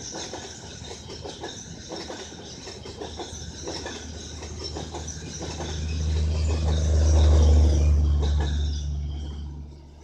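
A passenger train's LHB coaches rolling past, with wheels clicking irregularly over rail joints and a rush of running noise. A deep hum swells as the last vehicle goes by, then fades as the train pulls away.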